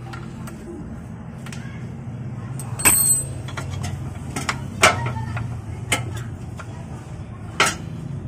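Metal tools and parts clanking during a transmission-mount replacement: four sharp clanks a second or two apart, the first with a brief metallic ring, over a steady low hum.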